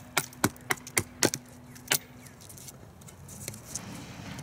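Kukri blade striking and shaving an upright wooden branch in quick short strokes to flatten one side. There are sharp cracks about three a second for the first two seconds, then the strokes stop.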